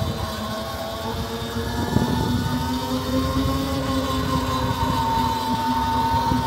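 E-Ride Pro SS electric bike's motor whining while riding, its pitch dipping slightly and then climbing as the bike speeds up. Underneath is a low rumble of wind and tyres.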